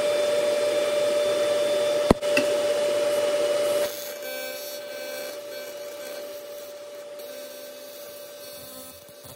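A loud, steady whirring hum with a sharp click about two seconds in, dropping off about four seconds in to the quieter, steady buzz of an Everlast 325EXT AC TIG arc welding aluminum.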